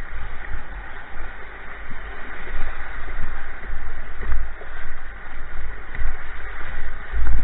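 Rushing, splashing river rapid water around a kayak's bow, a steady hiss, with irregular low rumbling buffets on the microphone.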